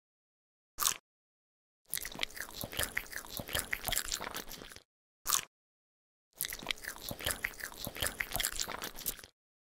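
Crunchy biting and chewing of food, in two stretches of about three seconds each, each preceded by a short sharp sound, with dead silence between them.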